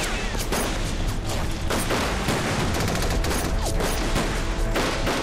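Film soundtrack of a gunfight: a fusillade of irregular gunshots, several a second, over background score music.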